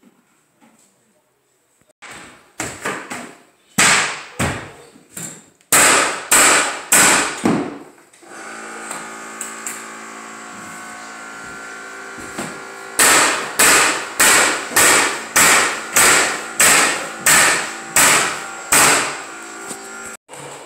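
Mallet blows on a floor nailer driving cleats into hardwood strip flooring: a first run of sharp bangs, then a steady motor hum, then about a dozen evenly spaced bangs, roughly two a second, over the hum.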